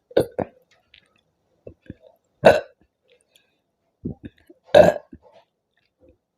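A person burping repeatedly after drinking Mountain Dew soda. There are two short burps right at the start, then two louder, longer burps about two and a half and five seconds in, with small ones between.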